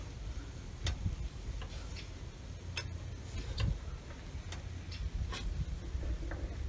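Wood fire crackling in a small cast-iron Salamander Hobbit multi-fuel stove, burning moderately slowly with its air controls partly closed. There are scattered sharp pops and ticks at irregular intervals over a low steady rumble.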